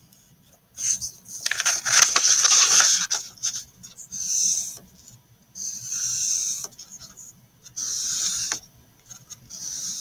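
Pencil scratching across paper, drawing long wavy lines in about five strokes of a second or so each, with short pauses between.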